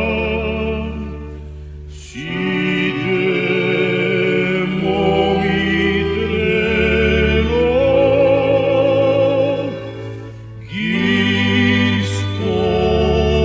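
A song: held vocal notes with vibrato over steady low sustained notes. The phrases break off briefly twice, about two seconds in and again around ten and a half seconds, before the singing resumes.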